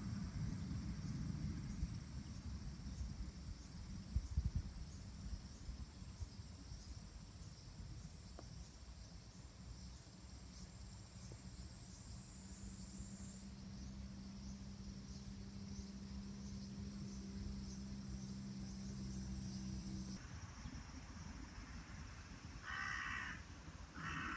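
A low steady rumble with a high steady whine over it, both stopping abruptly about 20 seconds in; near the end a crow caws twice.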